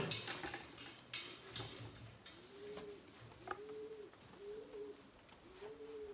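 Pigeons cooing in the barn: a series of soft, low coos repeating about once a second. Near the start, rustling and knocking as a plastic feed bucket is handled.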